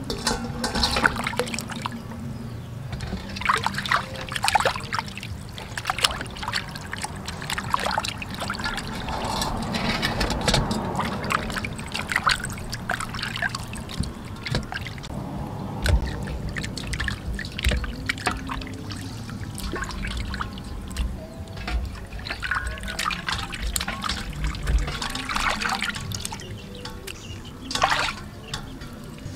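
Water splashing and trickling as raw chicken drumsticks are rubbed and rinsed by hand in a stainless steel bowl of water, with scattered sharp knocks and clicks throughout.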